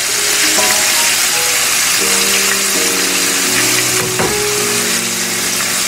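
Breaded chicken nuggets deep-frying in a skillet of hot oil, sizzling steadily: the chicken is still cooking, not yet at the point where the oil goes quiet. Background music with sustained notes comes in under the sizzle, and there is one sharp click about four seconds in.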